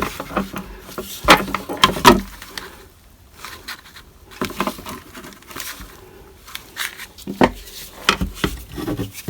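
Irregular clicks, knocks and scrapes of a screwdriver prying at a stuck, corroded hatch release switch in its plastic housing, with the loudest knocks near the start.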